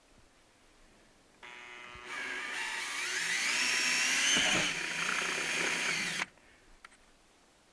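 Cordless drill running and boring a hole through a hard plastic car dash panel: a motor whine that starts about a second and a half in, grows louder and rises in pitch as it speeds up, then cuts off suddenly about six seconds in.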